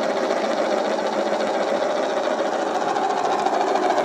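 A large home-made marble spinner, marbles hot-glued together, spinning with a steady, even whir.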